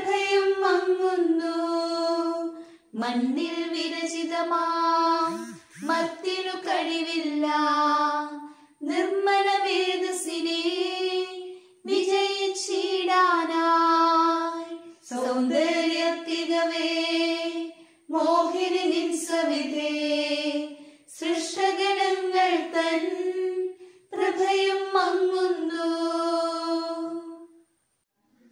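Unaccompanied singing of a Malayalam Syro-Malabar liturgical hymn in a high voice, in short phrases of two to three seconds with brief breath pauses. The singing stops just before the end.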